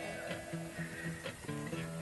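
Background music: an acoustic guitar plucking a melody, one short note after another.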